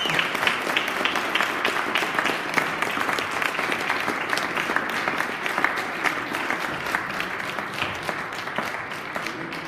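Audience applauding, a dense patter of many hands clapping that slowly fades near the end.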